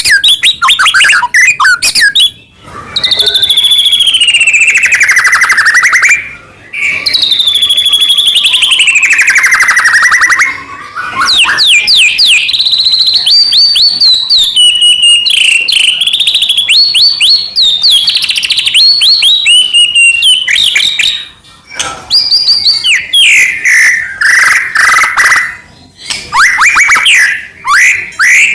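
White-rumped shama (murai batu) singing loudly in full song. Long wavering, falling trilled whistles alternate with rapid runs of sharp repeated notes, in phrases broken by brief pauses.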